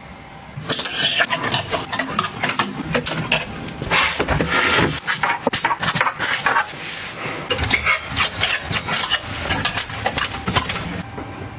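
Objects handled and set down by hand: a quick, irregular run of clicks, knocks and rustling that starts under a second in, typical of items being unpacked and arranged.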